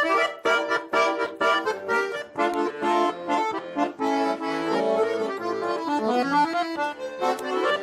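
Accordion playing an instrumental break in a lively folk song, with quick rhythmic chords and a rising run of notes a little after six seconds in.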